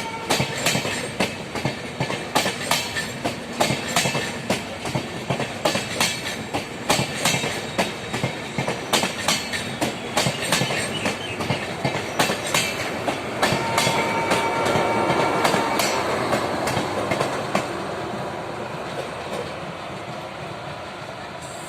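Wheels of a WDP4B diesel-hauled LHB passenger train clicking rapidly over rail joints, the clicks thinning out and the sound easing toward the end as the train slows. About two-thirds of the way in, the locomotive's multi-tone horn sounds steadily for about three seconds.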